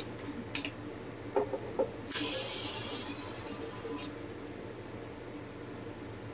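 A few light clicks and taps, then a steady spray hiss lasting about two seconds that cuts off sharply, over the steady hum of a space heater.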